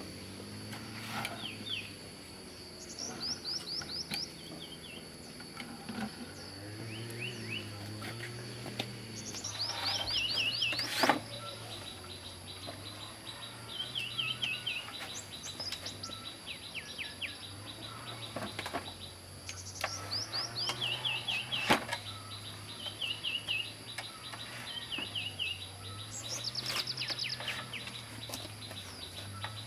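Small birds chirping in short, repeated trills of quick falling notes every few seconds, with a few sharp knocks from work, the loudest about eleven seconds in and again near twenty-two seconds.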